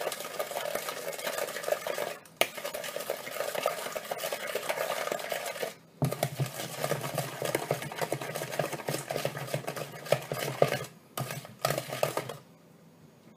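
Wooden spoon beating cake batter of margarine, sugar and eggs in a plastic mixing bowl: rapid scraping and tapping strokes against the bowl, with a couple of brief pauses, stopping near the end.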